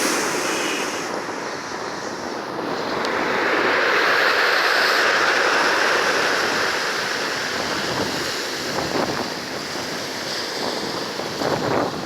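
Ocean waves breaking on a shore: a wave swells to its loudest about four seconds in and washes back, with a crackling fizz of surf near the end.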